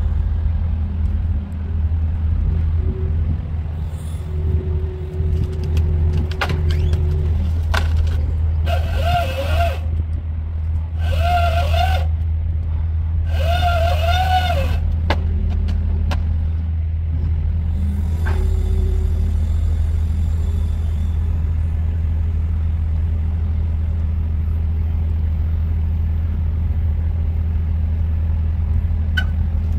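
Diesel engine of a Magni telehandler running steadily under load as it works a Woodcracker grapple-saw head on its boom, a constant low drone. Three separate high, wavering sounds of about a second each come in close succession about a third of the way in.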